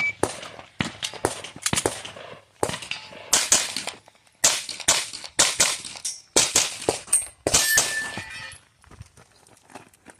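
Pistol shots from a Sig Sauer P320 fired in rapid strings during a timed USPSA stage run. The strings come in quick groups of several shots, with short breaks between them for movement or reloads.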